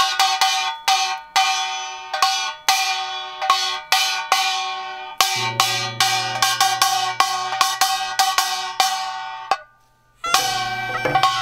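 Instrumental introduction to a Korean Seodo folk song: a run of sharp, ringing struck notes, joined about five seconds in by a steady low held tone. The music stops briefly near ten seconds, then comes back in with held tones.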